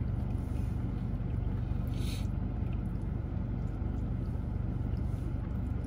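Steady low hum of a car engine idling, heard inside the cabin, with a brief soft hiss about two seconds in.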